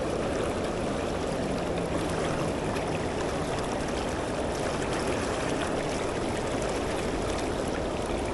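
Steady rushing of a creek running high and fast after heavy rain.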